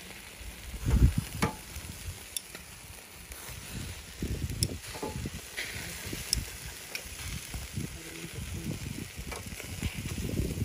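Food sizzling in hot oil while it is stirred, with irregular knocks and clicks of a utensil against the pan; a dull knock about a second in is the loudest.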